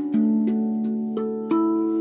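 Handpan playing a slow melody: struck steel notes that ring on and overlap, four in about two seconds, with light taps in between.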